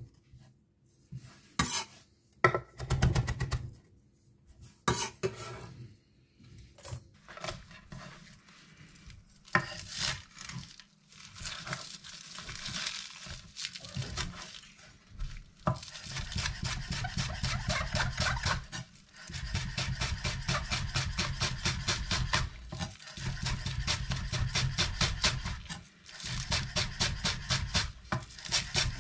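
Zwilling chef's knife chopping fresh greens on a cutting board. It starts with scattered single cuts and pauses, then from about halfway through goes into fast, steady rapid chopping with a few brief breaks.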